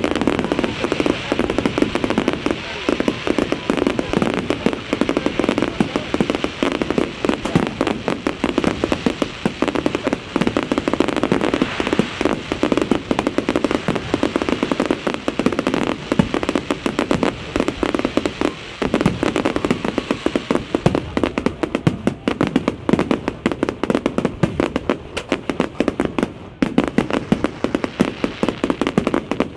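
Fireworks display with many aerial shells bursting at once: a loud, continuous stream of rapid pops and crackling.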